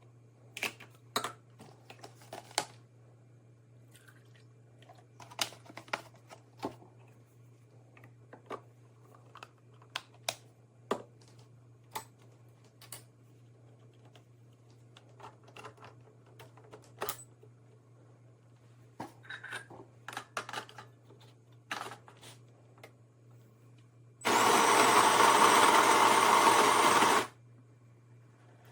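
Scattered light clicks and knocks of handling, then a loud, steady machine whirr for about three seconds near the end that cuts off abruptly.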